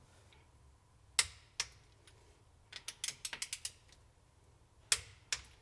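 Small metal clicks as the Mazak Integrex milling spindle's parts are handled by hand: two sharp single clicks, a quick run of about ten clicks in the middle, and two more clicks near the end.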